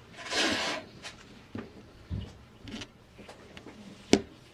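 Gloved hands handling a motorcycle carburetor bank on a table: a rustling scrape near the start, a few soft knocks with a low thud about two seconds in as the bank is turned and set down, and one sharp metallic click near the end.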